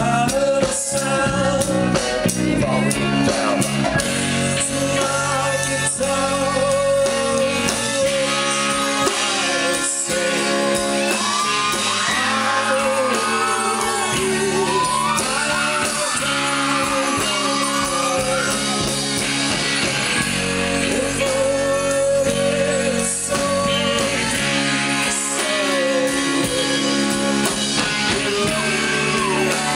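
Live rock band playing on electric guitars, bass, keyboard and drums, with a singer's voice gliding over the music.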